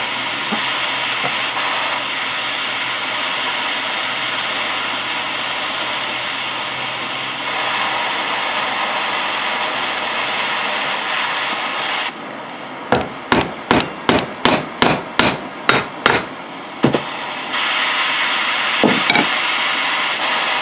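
A propane torch flame hisses steadily on a seized brake bleeder in a rusty caliper. Partway through, the hiss drops away and a ball-peen hammer strikes around the bleeder in a quick run of about a dozen blows, roughly four a second, then a few single blows before the hiss returns. The heat and the blows are meant to shock the rust-bound bleeder threads loose.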